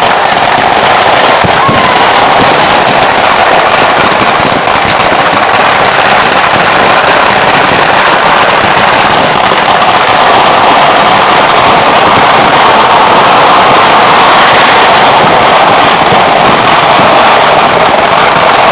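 Ground-level fireworks and firecrackers going off at close range in a dense, unbroken barrage, the bangs running together into one loud continuous crackle.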